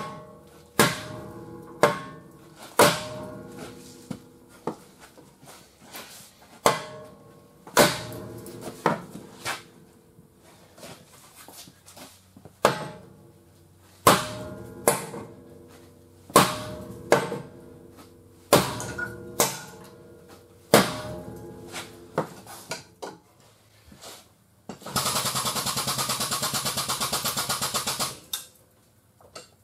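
Hammer blows ringing on the steel front frame structure of a car held under pull by a chained frame straightener: a long run of single strikes about a second apart, with short pauses. Near the end a steady mechanical buzz runs for about three seconds.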